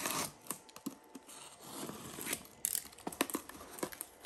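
A box cutter slicing the packing tape on a small cardboard box, with cardboard scraping and rustling as the box is handled. A quick run of light clicks and taps comes near the end.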